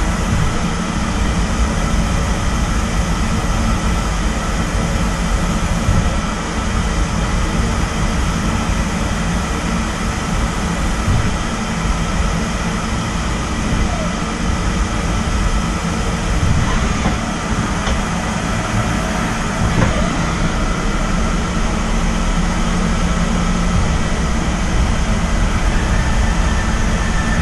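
Nakamura-Tome TW-20 CNC twin-spindle lathe running: a steady machine hum and low rumble with a thin steady high tone. Its tool turret moves partway through, adding a few faint short whines and ticks.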